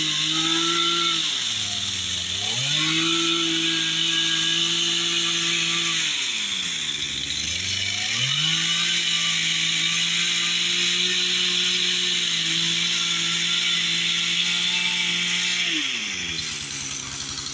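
Chainsaw cutting into wood during carving: the engine revs up and holds at full throttle three times, with the longest hold near the middle, and falls back toward idle between cuts and near the end.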